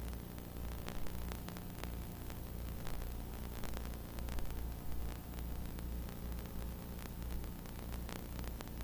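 Playback noise from a blank, unrecorded stretch of videotape: a steady hiss and a low, gently pulsing hum, with faint crackles.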